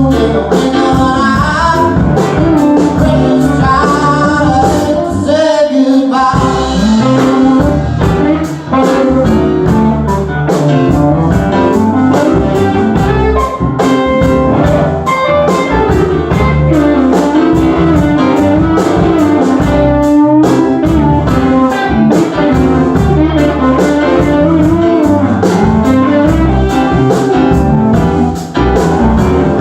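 A live band playing a song: a singer over guitar and other instruments, with a steady beat.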